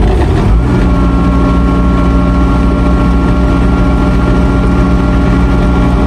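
Ransomes FrontLine 723D mower's diesel engine running just after starting: rough for the first moment, then settling into a steady idle under a second in.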